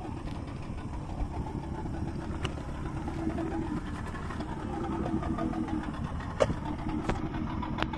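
A boat's engine running steadily under way, with a few short sharp knocks in the second half.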